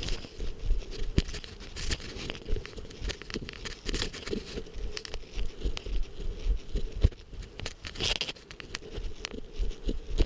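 Footsteps along a dirt forest trail, with overgrown plants brushing and rustling against the walker in bursts every few seconds.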